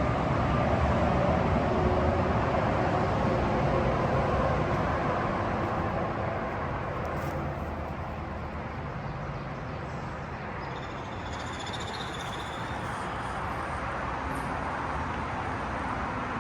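Steady drone of nearby highway traffic, louder over the first several seconds and then easing off a little.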